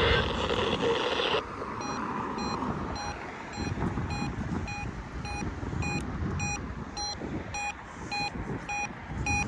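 Weather-alert radio receiver's electronic beeper sounding a steady run of short, shrill beeps, a little over two a second, over radio hiss. The receiver is signalling that a NOAA Weather Radio alert, here the Required Weekly Test, has come in. The beeps start about two seconds in, after a short burst of hiss.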